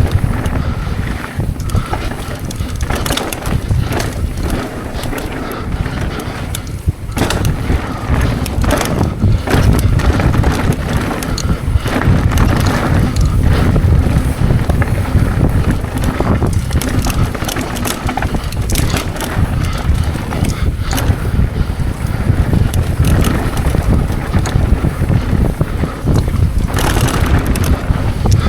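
Wind buffeting the microphone of a POV camera while a mountain bike descends a rough downhill trail. Frequent short knocks and rattles from the bike run through it.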